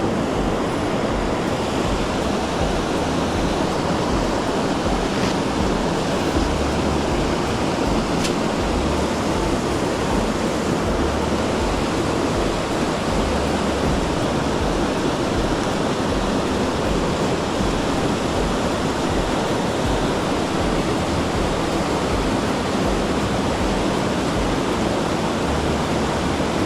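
Rushing water of a mountain stream, a steady, loud noise that does not let up.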